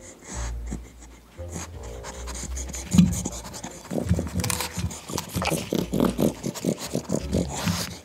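A husky and a pug sniffing and then chewing raw bok choy close to the microphones: a thump about three seconds in, then from about four seconds a quick run of crisp, wet crunches.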